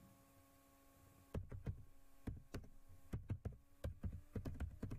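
Typing on a computer keyboard: irregular keystroke clicks that start about a second in, over a steady faint electrical hum.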